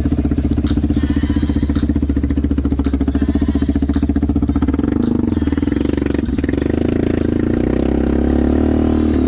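ATV engine running close to the microphone with a fast, even pulse, its pitch rising about halfway through as it speeds up and then holding at the higher speed.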